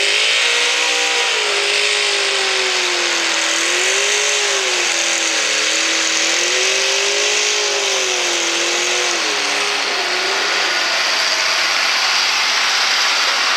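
Pulling pickup truck's engine running at high revs under load as it drags the sled, its pitch wavering up and down for about ten seconds. Near the end the engine note fades out, leaving a steady hiss.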